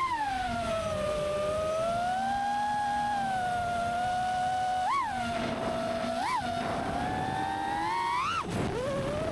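Brushless motors and propellers of a 5-inch FPV quadcopter (T-motor Velox 2207 1950kv motors, Gemfan 51466 props) whining, the pitch rising and falling with the throttle. Two quick throttle punches send the whine sharply up and back about five and six seconds in, and near the end it climbs and then drops off abruptly.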